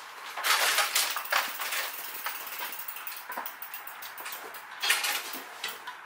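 Hard objects being handled: clattering and clinking with irregular clicks and rattles, busiest in the first couple of seconds and again about five seconds in.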